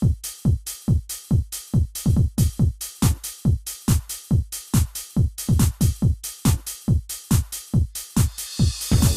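Electronic dance music with a fast, steady kick drum, about three to four beats a second, and a hiss that swells up near the end.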